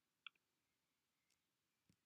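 Near silence with a single faint computer mouse click about a quarter second in, and a faint soft thump near the end.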